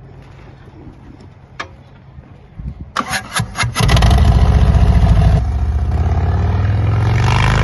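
Harley-Davidson Road Glide V-twin through Forsch Performance Angry level-five baffles and slash-cut end caps: a low steady idle, a few sharp pops about three seconds in, then revved hard and held loud for the rest.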